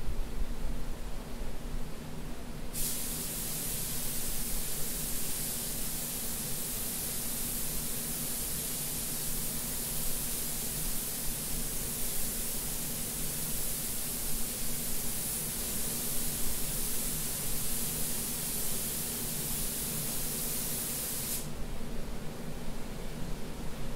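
Compressed-air spray gun spraying vitreous enamel onto a sheet-metal panel: a steady hiss that starts a few seconds in and cuts off sharply a couple of seconds before the end, over a steady low hum.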